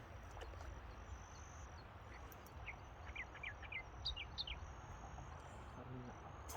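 Quiet riverside ambience: a bird gives a quick run of short chirps about halfway through, over a low steady rumble and a faint high steady tone.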